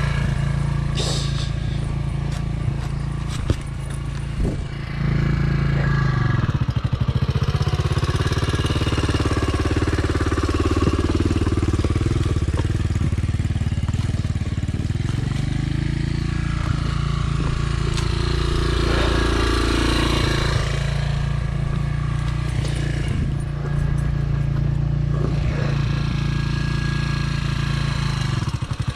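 Dirt bike engine running, its engine speed rising and falling several times as the throttle is opened and eased off.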